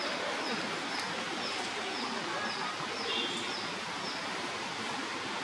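Steady rain hiss on forest foliage, with a short high call repeating about twice a second that stops about four seconds in.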